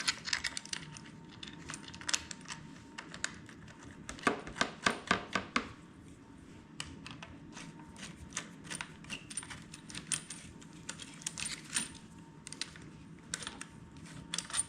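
Hand-guard bolts and small metal hardware being handled and fitted: scattered light metallic clicks and rattles, with a quicker run of louder clicks about four seconds in.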